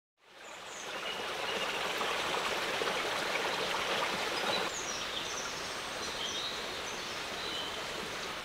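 Shallow stream running over stones, fading in from silence, with small birds chirping now and then above the water. The water sound drops a little about halfway through.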